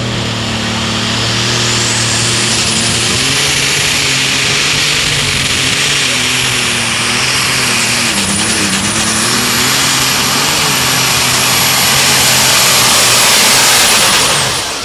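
Light super stock pulling tractor's engine running at full throttle under load while dragging a weight-transfer sled. A high turbocharger whine climbs over the first couple of seconds and then holds. The engine pitch wavers and dips briefly about eight seconds in, and the sound is loudest as the tractor passes, near the end.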